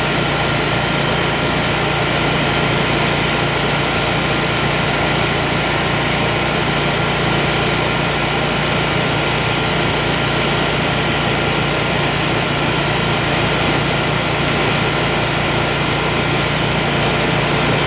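Kawasaki FX801V V-twin engine of a Kubota Z726X zero-turn mower running steadily above idle while the hydrostatic transaxles are driven through the air-purging procedure after a fluid and filter change.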